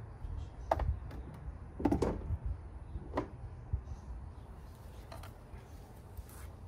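A few light knocks and clinks of tools and parts being handled in a car's engine bay, as the ignition coil rail is picked up for refitting, over a low steady rumble.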